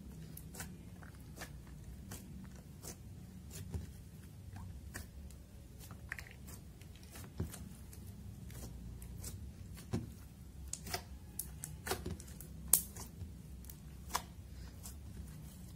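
Hands kneading and folding slime: irregular sticky clicks and small pops as it is squeezed and pulled apart. The loudest pop comes about three-quarters of the way through.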